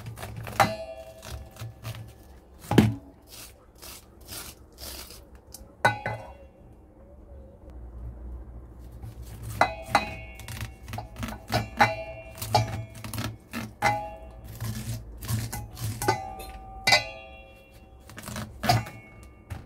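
Knife striking and scraping against a stainless steel bowl as sweet corn kernels are cut off the cob. There are irregular clinks and knocks, and the bowl rings after the harder hits.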